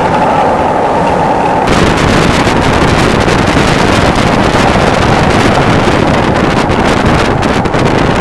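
Loud wind rushing past a moving vehicle and buffeting the microphone, a steady roar. About two seconds in it turns harsher and crackly.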